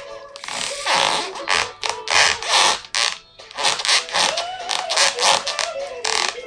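Stiff cowhide riding boots creaking as the legs shift and cross, leather rubbing on leather in a fast, irregular run of creaks, several a second.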